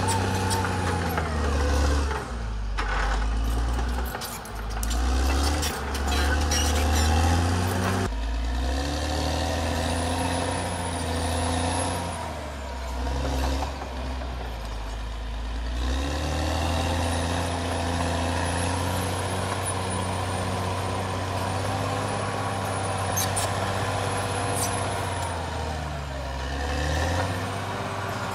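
Caterpillar D6R XL bulldozer's diesel engine working under changing load, its pitch dropping and climbing as the dozer pushes, with a thin high whine that comes and goes.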